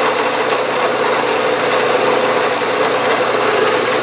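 Milling machine spindle running steadily, with a steady hum, as a short drill bit cuts into the metal disc to start a hole.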